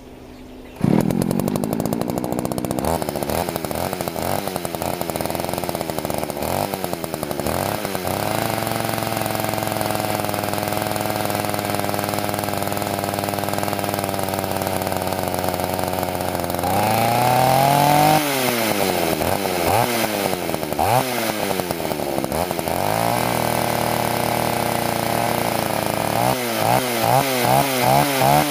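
Poulan 3400 two-stroke chainsaw engine catching about a second in, then running while it warms up, revved up and down again and again, with a steady high-speed stretch in the middle and quick short blips near the end.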